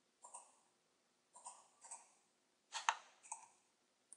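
Computer mouse clicking about five times, spaced irregularly, with the sharpest click a little under three seconds in.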